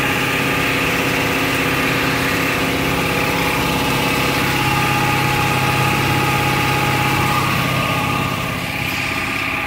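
Ford F-250 Super Duty diesel pickup engine idling, heard from underneath the truck: a steady drone with a hiss over it, the low hum growing stronger for a few seconds in the middle.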